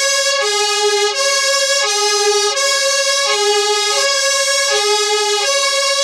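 UK fire engine siren sounding the two-tone hi-lo call. A higher and a lower note alternate, each held about three quarters of a second, at an even loudness.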